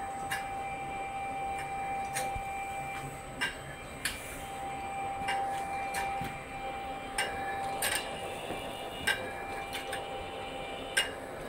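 Wood-gas flare burning with a steady hum and whine, broken by about a dozen irregular sharp pops and clicks, the loudest near the end. Condensation water from the waterlogged gas filter is being sucked through by the blower and sprayed into the flame as drops.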